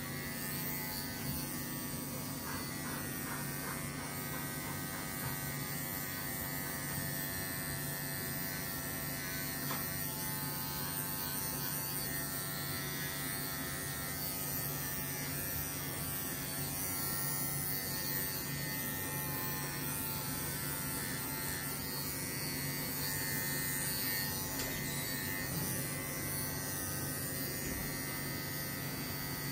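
Cordless electric dog clippers running with a steady buzzing hum as they are worked through a Scottish terrier's coat on the head and neck.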